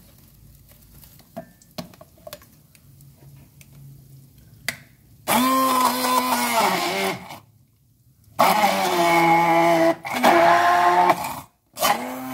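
Immersion hand blender puréeing boiled chickpeas in a plastic jug. After a few seconds of faint handling clicks, the motor runs in short bursts, three and the start of a fourth, its whine dropping in pitch as it winds down after each.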